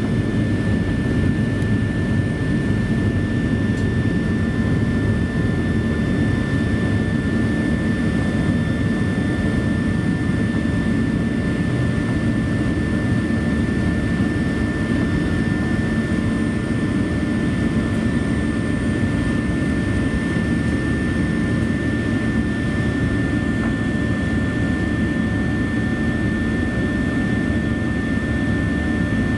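Cabin noise of a Boeing 737-800 climbing out after takeoff, heard from a forward cabin seat: its CFM56-7B turbofan engines at climb power give a steady, low-heavy engine and air noise, with a thin, steady high whine above it.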